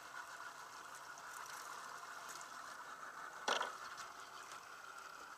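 A steady hiss with one sharp knock about three and a half seconds in.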